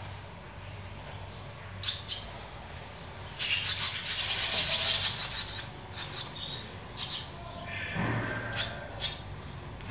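Barn swallows chirping in short high calls, with a loud burst of shrill, rapid chattering lasting about two seconds from roughly three and a half seconds in, from the nest of hungry chicks being fed by their parents.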